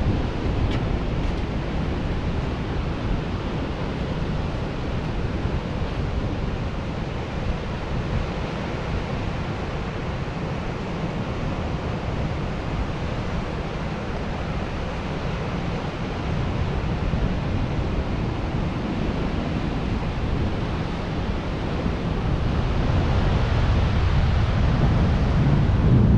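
Steady wash of ocean surf with wind buffeting the microphone, growing louder near the end.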